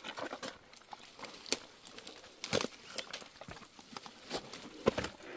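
Rubber boots stepping through dry leaves and twigs and onto fallen logs: irregular crackles, rustles and knocks, the loudest about two and a half seconds and five seconds in.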